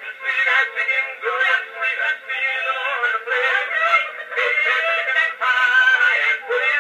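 Edison cylinder phonograph playing a black wax cylinder recording of a man singing with music, heard acoustically through its large horn. The sound is thin and narrow, with no bass and little treble.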